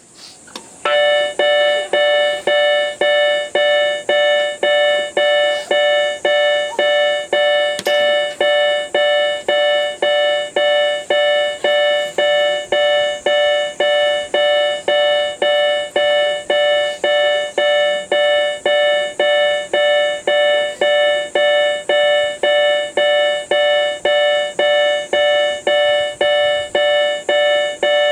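Japanese railway station's train-approach warning: an electronic chime tone repeating in short, even pulses about twice a second, signalling that a train is approaching. It starts about a second in.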